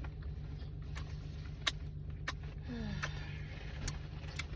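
Steady low hum of a car heard from inside the cabin, with a few light clicks and a short falling squeak about three seconds in.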